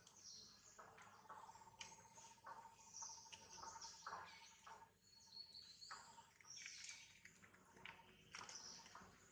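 Faint outdoor ambience: scattered high bird chirps over a thin steady trill that holds for several seconds.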